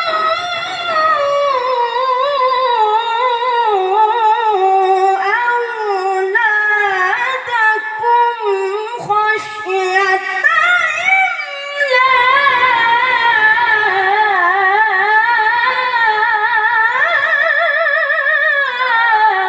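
A male Quran reciter (qari) chanting long melismatic phrases of tilawah in a high register, the voice full of rapid ornamental trills and slow pitch steps. The line descends, climbs again, and ends in a falling glide near the end.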